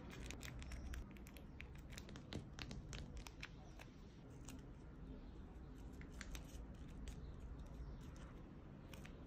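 Handmade tape-covered paper stiletto nail tips being slid onto and adjusted on the fingertips: faint crinkling with a quick run of light clicks and taps, thickest in the first few seconds, with a few more later on.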